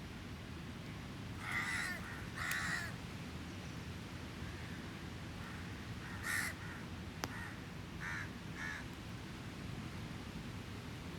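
A crow cawing: five harsh calls, two close together, then one alone, then two more, over a steady low background rush. A single sharp crackle from the campfire a little past halfway.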